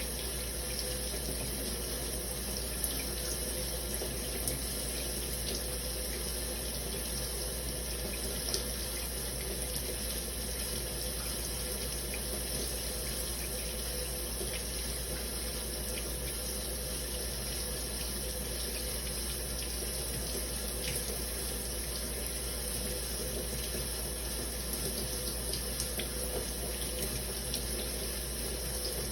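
Running shower water falling steadily, with small scattered drip and splash ticks.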